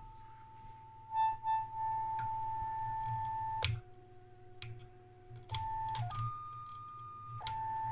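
FM modulation test tone from a 1961 Marconi TF995A/5 valve signal generator, heard through a small handheld receiver's speaker: a steady whistle near 1 kHz. It switches to a lower tone, then to a higher one, then back, with a sharp click at each change of the modulation-frequency switch. The generator's FM modulation is working again after its bad contacts were cleaned.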